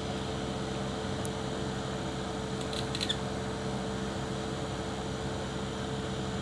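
Steady electrical mains hum, with one faint tick about a second in and a short cluster of small clicks about three seconds in.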